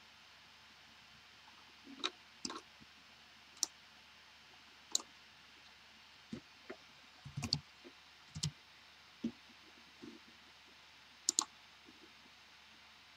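Computer mouse clicking: irregular single and paired clicks spread through, with a few duller low knocks around the middle, over faint room hiss.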